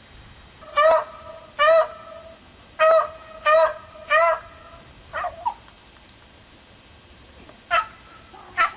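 Beagle barking: five sharp, pitched barks in quick succession, a weaker one, then a pause and two more barks near the end.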